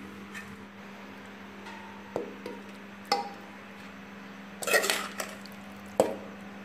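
A steel spoon clinking and knocking against a metal pressure cooker pot as masala is spooned onto layered rice. There are a few separate clinks, a short rattling cluster a little past the middle, and one sharp knock near the end, over a steady low hum.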